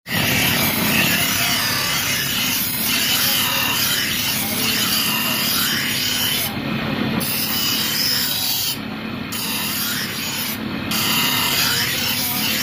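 Steel sickle blade pressed against a spinning bench grinding wheel: a continuous harsh grinding over the steady hum of the grinder's motor. The grinding's pitch shifts up and down as the blade is worked along the wheel, easing off briefly a few times.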